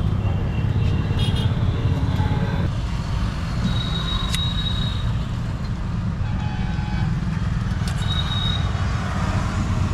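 Roadside traffic noise, a steady low rumble of passing vehicles, with a few small clicks and a brief high ringing tone about four seconds in and again near eight seconds.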